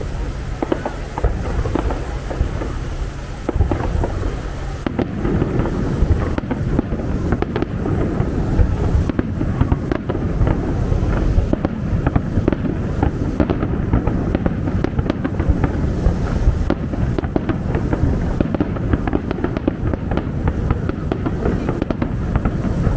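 Aerial fireworks going off in a continuous barrage of bangs and crackling. About five seconds in, the bursts come thicker and heavier.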